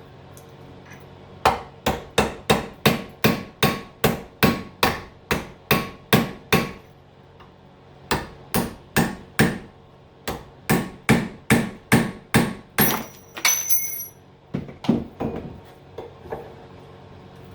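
Hammer striking a punch to drive the copper windings out of a small transformer's core: quick, sharp metal-on-metal blows at about three a second, in two long runs with a short pause between, then a few more near the end.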